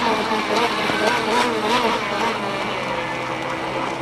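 A model speedboat's MDS 28 two-stroke glow engine running at speed, a buzzing note that wavers up and down in pitch.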